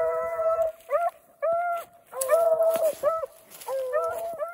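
Two beagles baying while running a rabbit's scent: a string of about six drawn-out bawls, two voices at times overlapping.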